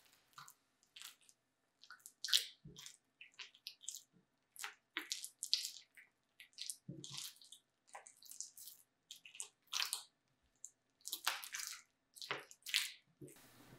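Sticky, wet milk-bread dough being kneaded by hand on a silicone mat: irregular wet squeezing and tearing noises, several a second, with an occasional heavier slap as the dough is pressed down.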